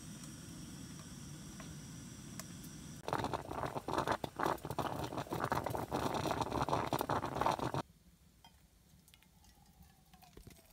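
Stainless steel coffee percolator bubbling hard for about five seconds, starting about three seconds in, after a steady low hiss. The sound cuts off sharply, and near the end coffee pours faintly into a steel mug.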